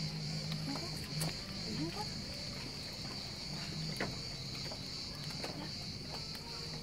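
A steady, high-pitched chorus of insects trilling without a break, over a low steady hum, with a few faint clicks.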